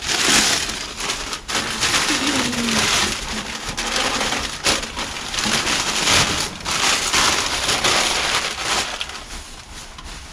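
Brown masking paper being peeled off and crumpled up by hand: irregular bursts of crinkling and rustling that ease off near the end.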